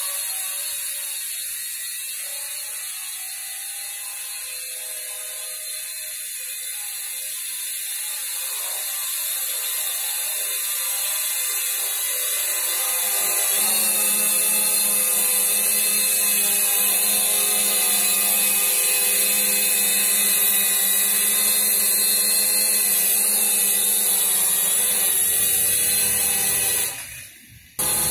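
Small quadcopter drone (Holy Stone HS120D) hovering and flying low, its propellers making a steady high whir with a pitch that wavers as the motors keep correcting. It gets louder about halfway through and drops out for a moment near the end.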